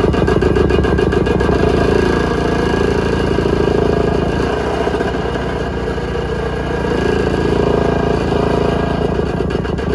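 An engine running steadily, its pitch rising and falling several times as the revs change.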